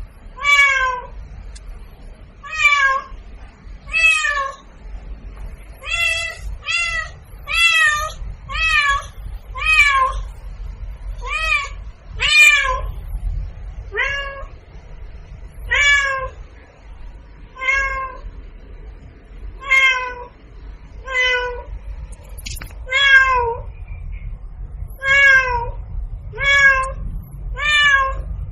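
A cat meowing over and over, about twenty short meows, one every second or two, each rising and then falling in pitch. A low hum runs underneath.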